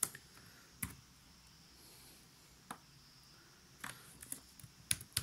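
Faint, scattered clicks of a computer keyboard and mouse as text is copied and edited, with a short run of keystrokes about four seconds in.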